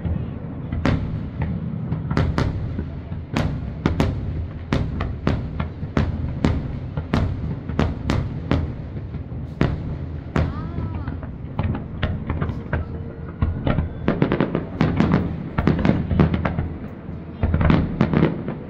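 Aerial fireworks display: shell bursts going off one after another, about one or two a second, quickening into rapid volleys in the last few seconds.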